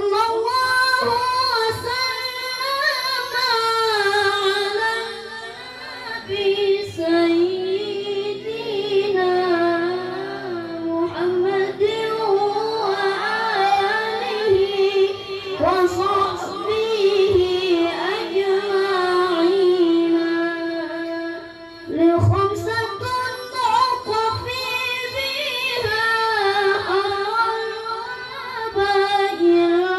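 A child qari reciting the Quran in a high-pitched, melodic tilawah style, with long held notes and ornamented turns. The phrases break for breath about five seconds in and again about 22 seconds in.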